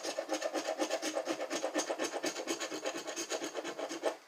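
Scratch-off lottery ticket being scratched with a green coin-shaped scratcher: fast back-and-forth scraping strokes, several a second, that stop just before the end.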